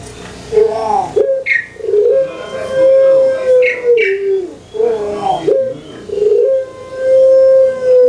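Puter pelung, a Barbary dove (Streptopelia risoria), singing its long cooing song twice. Each phrase is a few short, gliding coos ending in one long drawn-out note. A few brief high chirps come in between.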